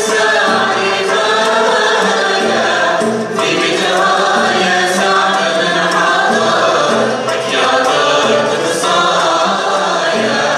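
Algerian Andalusi orchestra performing: ouds, mandolins and violins playing the melody together over hand percussion, with the ensemble singing in unison.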